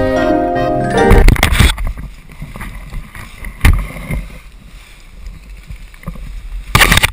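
Background music ends about a second in, then wind buffets a parachutist's own camera microphone during the descent under a round military parachute, uneven rushing noise with a sharp knock near the middle and a loud burst near the end.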